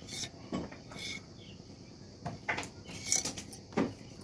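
Several soft, separate knocks and scrapes of a small steel pot against a steel plate as mustard oil is poured into gram flour, with hands working the flour.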